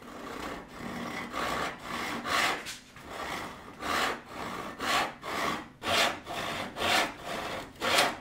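Handsaw cutting off the end of a wooden board: rasping back-and-forth strokes, lighter and quicker at first, then full strokes about once a second.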